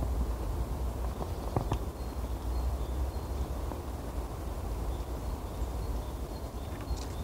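Outdoor ambience dominated by a steady low rumble on the microphone, with a few faint sharp clicks and faint short high notes now and then.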